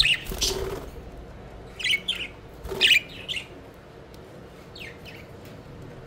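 Budgerigars giving short, sharp chirps in quick clusters, loudest about two and three seconds in, with a brief flutter of wings at the start.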